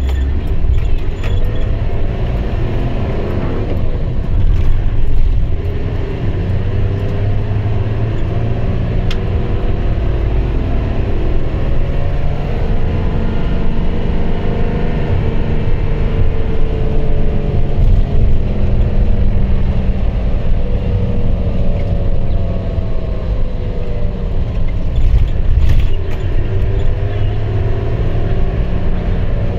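Car engine and road noise heard from inside the cabin while driving, a steady low rumble. The engine's pitch rises and falls slowly as the car speeds up and slows down.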